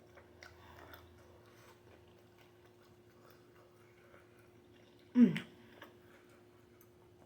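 Faint chewing and wet mouth clicks of a person eating fried chicken, then about five seconds in a single short, loud vocal sound that falls in pitch.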